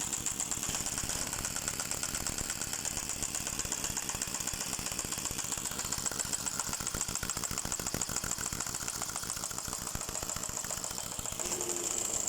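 A running engine or machine with a steady, rapid, even mechanical clatter and a high hiss.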